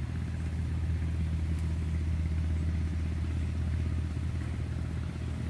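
Steady low hum of a motor running at constant speed, holding one pitch.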